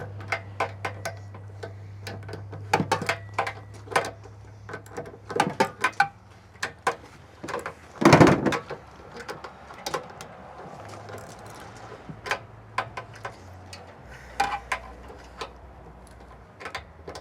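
Hand tools clicking and knocking against the sheet-metal housing and parts of an SF-25 RV furnace being taken apart, with scattered small clicks and one louder clatter about eight seconds in. A low steady hum runs underneath.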